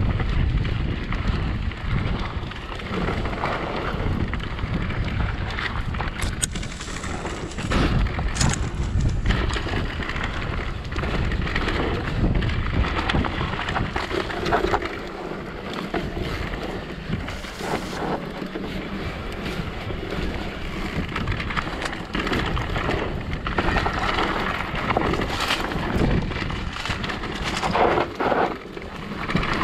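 Wind buffeting the microphone and tyres rolling over a dirt trail as an e-mountain bike descends, with scattered knocks and rattles from the rough ground.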